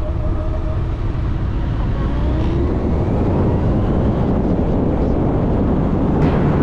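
Kawasaki GTR 1400 motorcycle's inline-four engine running while riding, with wind noise on the microphone; its pitch rises briefly about two seconds in.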